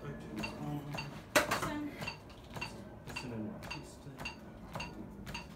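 Chest compressions on a CPR training manikin, giving a steady clicking about twice a second, in time with compressions at about 110 a minute. One louder sharp knock comes about a second and a half in.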